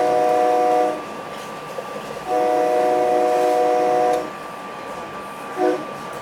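SEPTA Silverliner commuter train's multi-tone air horn sounding a chord: a long blast that ends about a second in, a second long blast of about two seconds, then a short toot near the end. A steady hum from the running train continues between the blasts.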